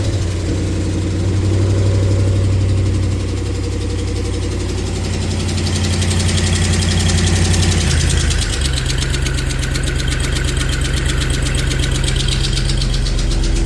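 A 5.7-litre Hemi V8 in a pickup truck idling just after starting, freshly fitted with new spark plugs to cure a cylinder misfire. It runs steadily, sounding like it is running on all eight cylinders, and its idle note changes about eight seconds in.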